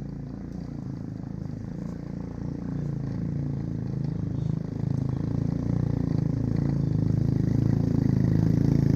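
Honda Cub's small single-cylinder four-stroke engine pulling uphill, growing steadily louder.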